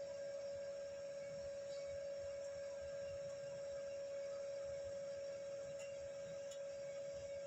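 A steady, unchanging mid-pitched tone over a faint hiss.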